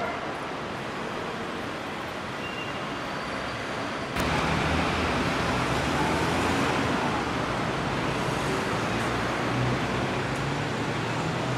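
Street traffic heard from above: a steady wash of passing cars, which steps up suddenly about four seconds in, with a low engine hum underneath from then on.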